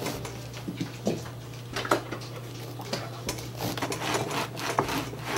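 A knife sawing through a crusty sourdough loaf on a wooden cutting board, with irregular short crunching and scraping strokes as the crust breaks. A steady low hum runs underneath.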